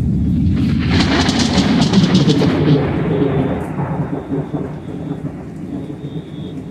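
Loud thunder rumbling, swelling into a crackling peak about a second in and then rolling away and fading over the next few seconds, with rain falling.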